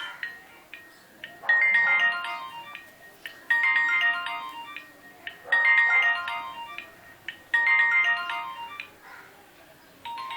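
Nokia C1-00 mobile phone playing a ringtone: a short phrase of bright beeping notes that starts abruptly and repeats every two seconds, four times over.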